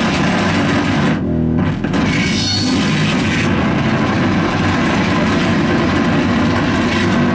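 Loud live electronic noise from effects pedals, a mixer and a small synthesizer: a dense, distorted wall of noise across the whole range. The top drops away for about half a second a little over a second in, then comes back.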